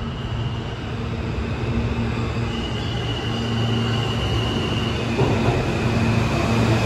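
New York City subway train running in the underground station, its rumble growing steadily louder. Under the rumble is a steady low hum, and over it a thin high whine.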